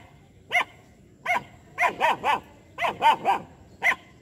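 Two-month-old German Shepherd puppy barking aggressively: about nine short, high-pitched barks, some coming in quick runs of two or three.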